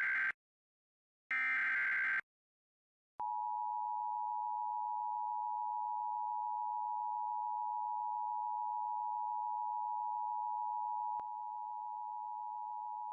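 Emergency Alert System header: the tail of one burst of the buzzy digital SAME data tones, then one more full burst about a second later. About three seconds in, the steady two-tone EAS attention signal starts and holds, stepping down slightly in level near the end.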